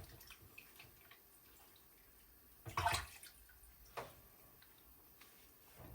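Food frying in a covered frying pan, a faint steady sizzle with light crackles, a louder burst of noise about three seconds in and a shorter, sharper one about a second later.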